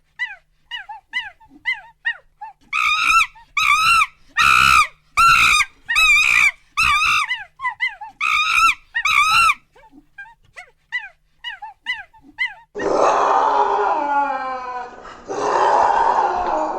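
A run of short, high, arched animal calls: faint and quick at first, then about ten loud ones a little over half a second apart, then faint again. About 13 seconds in, a different animal takes over with long, falling, howl-like cries.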